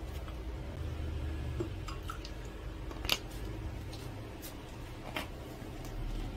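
A few short, sharp metallic clicks and taps from a hand-held metal garlic press being worked over a glass bowl, the strongest about three seconds in, over a low steady hum.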